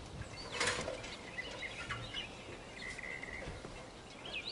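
Small birds chirping in the background, with one short rustling noise just under a second in.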